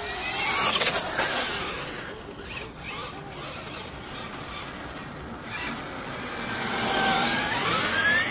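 Traxxas E-Revo 2.0 RC truck's electric motor and drivetrain whining as it drives past at speed. It is loudest about a second in and again near the end, where the whine climbs in pitch as the truck speeds back toward the camera.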